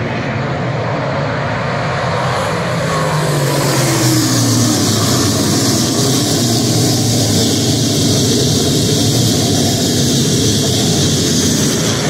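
A pack of dirt modified race cars running at racing speed through the turn, their V8 engines loud and steady. About two to four seconds in, the engine pitch falls as cars pass close by, and the sound grows louder and stays there.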